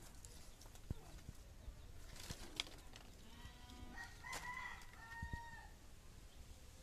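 A rooster crowing faintly: one drawn-out crow of several held notes from about three and a half seconds in, lasting about two and a half seconds, with a few small knocks around it.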